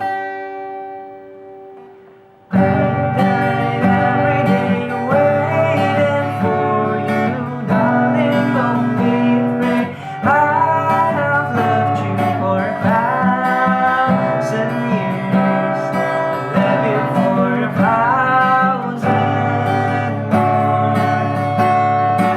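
Acoustic guitar notes ringing out and fading, then strumming starts again about two and a half seconds in, with a solo voice singing a gliding melody over it.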